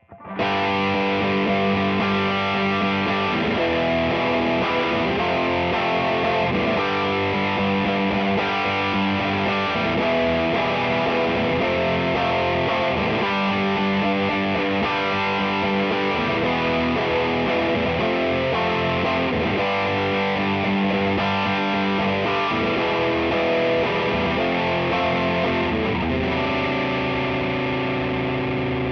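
Electric guitar played through an Earthquaker Devices Westwood overdrive pedal with the drive cranked, into a tube amp: continuous overdriven chords and riffs, ending on a long sustained chord.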